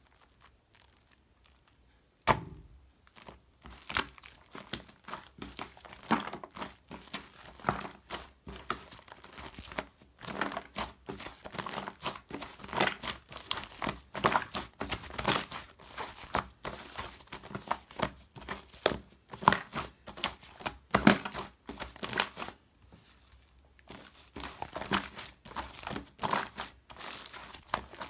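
Slime being squished and kneaded by hand, giving a dense, irregular run of sticky crackling and clicking pops. A single sharper snap comes about two seconds in, and the crackling briefly stops a few seconds before the end.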